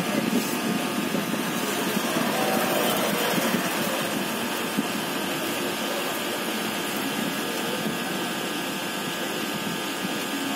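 Hot air rework gun blowing steadily onto a phone's logic board, an even rushing hiss of air that hardly changes.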